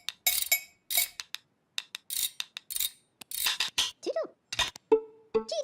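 A run of sharp metallic clanks with a ringing tail, about two a second, then a short swooping pitched call about four seconds in.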